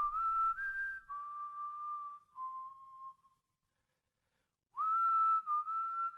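A melody whistled in clear, held single notes, each phrase starting with a short upward slide. The first phrase steps down in pitch and dies away about three and a half seconds in; a new phrase starts about a second later.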